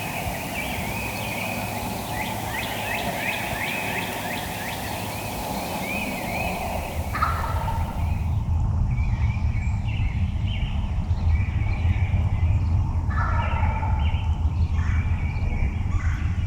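Wild turkey gobbling twice, about 7 and 13 seconds in, with rapid repeated bird calls in the first half.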